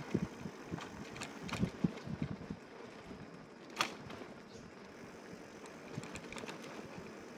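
Bicycle rolling along a path: steady tyre and riding noise, with a run of low thumps and rattles over the first couple of seconds and one sharp click about halfway.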